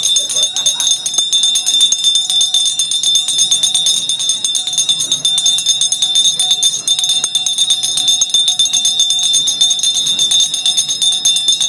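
Bells ringing in a continuous rapid metallic jingle, with a steady bright high ring running under it.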